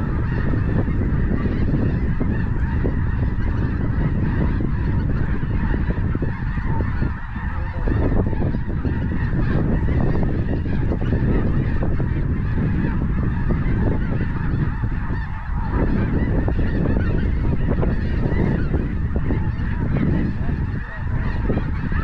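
Large flock of snow geese calling in flight, a dense, steady din of many overlapping honks.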